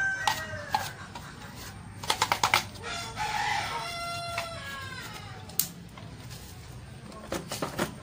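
A rooster crowing twice: one long falling crow ending about a second in, and another from about three to five seconds. Between them comes a quick run of sharp clicks and knocks, and a few more come near the end.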